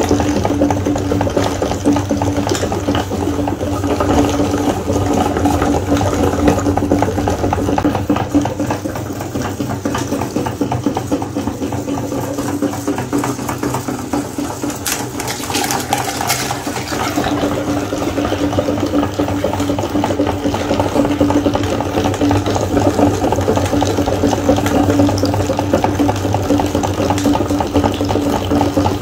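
Electric meat grinder running steadily with a constant motor hum, with a rough, wet grinding noise as it processes eggs. A brief crackling rise comes about halfway through.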